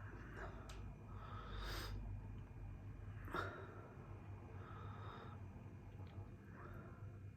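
Close-miked eating sounds, mouth noises and breathing through the nose, with a noisy breath about one and a half seconds in and a sharp mouth click about three and a half seconds in.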